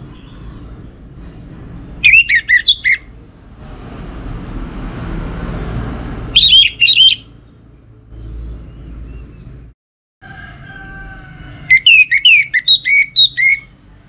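Orange-headed thrush singing in three short bursts of rapid, varied whistled phrases. A rushing noise rises and fades between the first two bursts.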